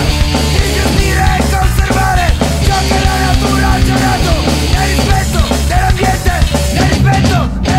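A rock band playing live and loud in a punk style: electric guitar or bass over a drum kit.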